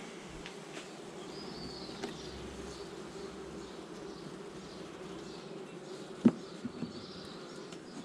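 A colony of honeybees buzzing over the open frames of a hive, a steady low hum. A sharp knock about six seconds in, the loudest moment, followed by two lighter ones.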